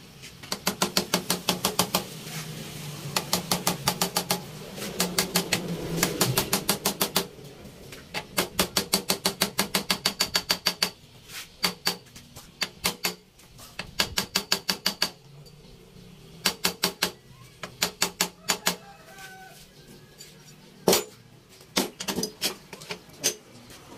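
Hand ratchet clicking in quick runs of about eight clicks a second, with short pauses between strokes, turning a fitting at the top of a motorcycle monoshock's shaft. Near the end there is one sharper knock.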